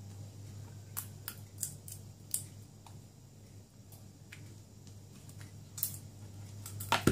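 Several sharp clicks and light taps: four in the first two and a half seconds and a louder pair near the end, over a steady low hum.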